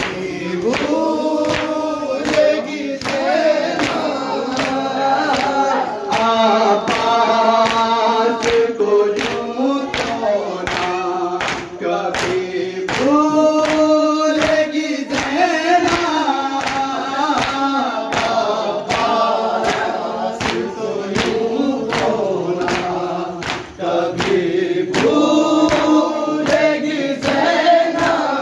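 A group of men chanting a noha, a Shia lament, in chorus, over a steady beat of open-handed chest-beating (matam), roughly one and a half strokes a second.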